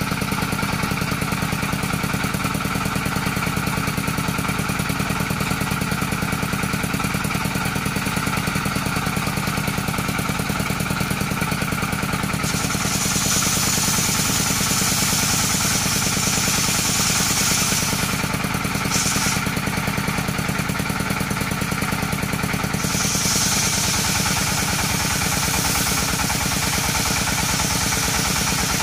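Sarkel circular saw running steadily on its motor. Several stretches of high-pitched hiss, the first starting about halfway in, fit the blade cutting along coconut wood.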